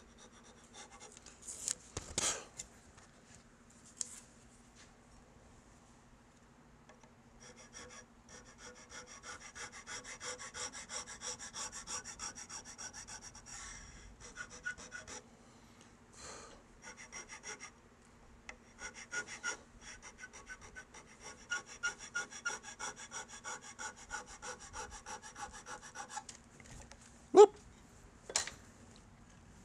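Hand checkering tool with carbide cutters scraping into a wooden 1911 pistol grip panel in quick, even back-and-forth strokes, cutting the checkering lines. The strokes come in two runs of several seconds, with a few sharp knocks, the loudest near the end.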